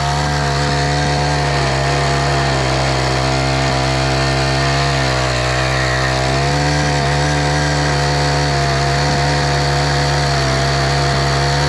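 Troy-Bilt four-stroke edger engine running steadily at high throttle while its blade cuts an edging line; the engine note sags briefly about halfway through as the blade takes load, then recovers.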